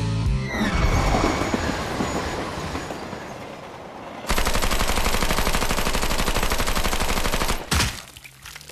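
Film sound effects of a loud noisy crash that dies away, then sustained rapid automatic gunfire for about three seconds that cuts off suddenly, with one more short burst just after.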